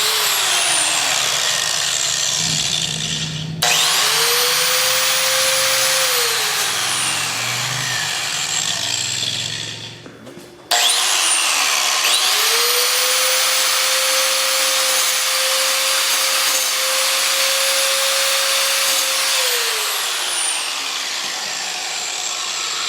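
Angle grinder running and grinding against the aluminium body of an iPhone 6, a harsh steady grinding hiss. The motor whine climbs sharply as it spins up a few seconds in and falls away, then, after a brief drop in level, it spins up again about eleven seconds in.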